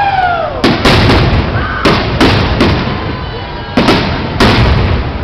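Aerial firework shells bursting overhead, a string of sharp bangs, some coming in quick pairs, each followed by a rumbling echo, with a short lull about three seconds in.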